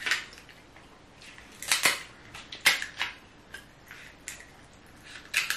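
KitchenAid kitchen scissors snipping through a cooked king crab leg shell: a string of sharp, crunching snips at uneven intervals, the loudest about two seconds in, near three seconds and near the end.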